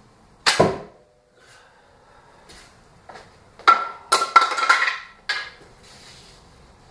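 A 120 lb tri-laminate warbow loosed from full draw: one loud, sharp crack of string and arrow about half a second in. From about 3.7 to 5.5 seconds comes a clatter of sharp knocks with a ringing note.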